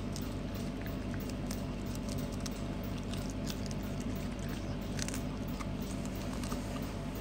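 A small dog crunching and chewing a crisp lettuce leaf, a run of quick irregular crunchy clicks, over a steady low hum.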